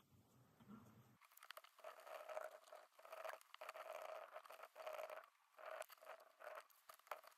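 Faint, irregular scraping and crackling, starting about a second in, as MacBook Pro battery cells are pried and peeled up off their adhesive.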